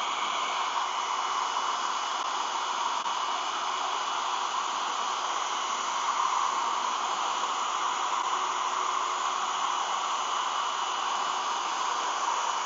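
Hair dryer running steadily, blowing hot air to heat and soften clear vinyl film being stretched over a goggle lens: an even rush of air with a faint high whine.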